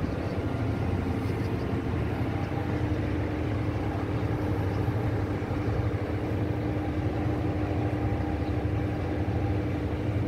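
Chipping hammer running continuously at a fast, even blow rate, breaking hardened concrete inside a steel transit mixer drum.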